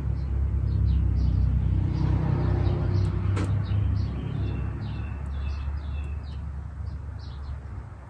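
Low rumble that holds for about four seconds and then fades away, with small birds chirping repeatedly from about three seconds in.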